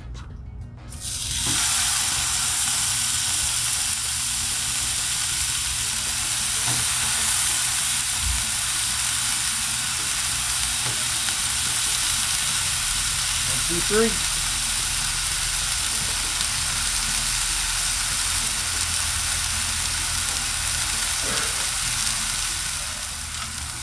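Seasoned New York strip steaks sizzling as they sear on a Blackstone 22-inch griddle's hot flat-top, a steady loud hiss that starts about a second in.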